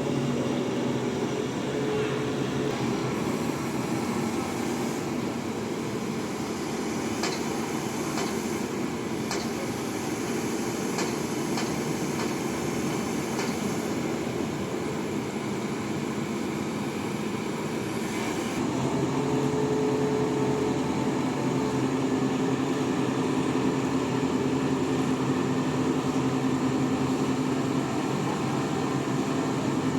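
Heavy crane engine running steadily under load, stepping up louder and slightly higher about two-thirds of the way through, with a few faint metallic ticks in the middle.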